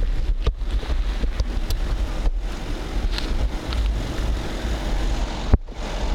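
Car on the move: a steady low road and wind rumble with wind buffeting the microphone, and one sharp knock about five and a half seconds in.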